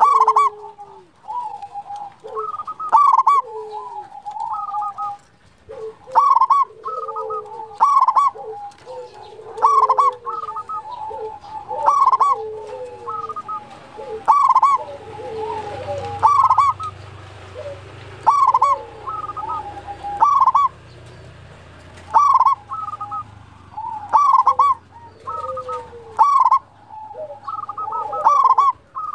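Zebra dove (perkutut) cooing over and over, a short rolling phrase of coos about every one to two seconds.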